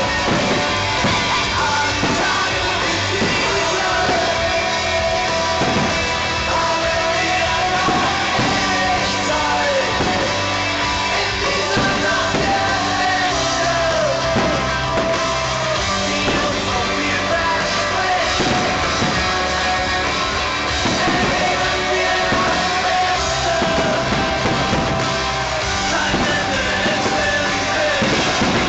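Background music: a song with singing over a steady beat.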